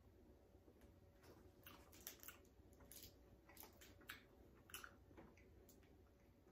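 Faint chewing of a chocolate candy with a gummy centre and a cracker-like crunch: a scatter of small crunches and clicks.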